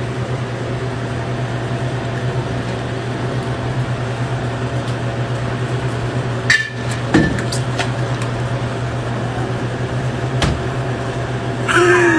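A steady low machine hum at an even level, with a few sharp knocks around the middle; a cat meows right at the end.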